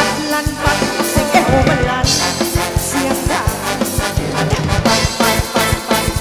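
Thai ramwong dance band music fed straight from the mixing desk: a melody line over a steady, evenly spaced drum beat.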